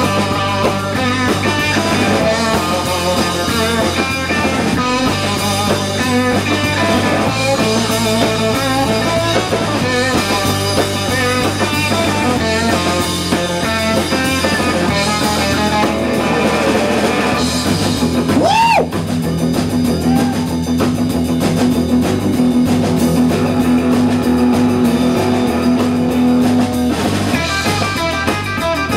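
Live rock band playing an instrumental: electric guitar lead over bass and drum kit. About two-thirds of the way through comes a quick swooping pitch bend, then a low note held for several seconds.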